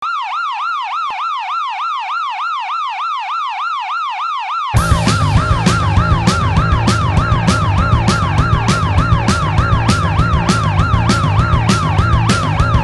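A siren wailing in fast rising-and-falling sweeps, about three a second. A little under five seconds in, loud band music with drums and bass comes in under it with a steady beat, the siren going on over the top.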